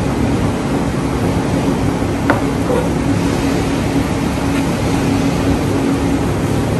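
Steady hum of commercial kitchen machinery with a low drone running through it. A chef's knife cutting salmon on a plastic cutting board gives a single sharp tap about two seconds in.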